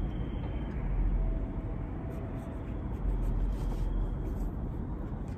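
Small knife scraping and cutting into a pumpkin, over a low rumble.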